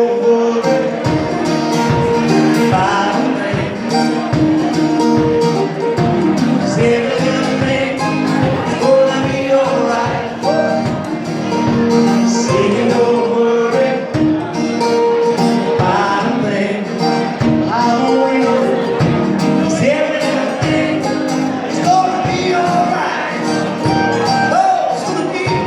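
Live band playing an upbeat song with singing over a steady beat.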